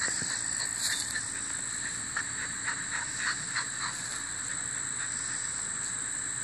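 Steady high-pitched insect drone from the surrounding grass, with a run of short, high squeaks scattered through the first few seconds.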